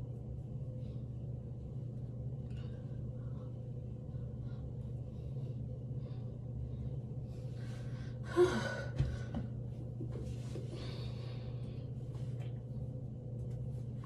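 A woman's sharp gasp about eight seconds in, the loudest sound here, followed by a sharp click and a softer breathy hiss, over a steady low hum.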